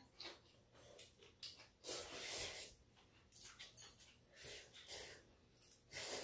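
Faint eating sounds at close range: a person slurping and chewing over a bowl, with breaths through the nose, in short irregular bursts.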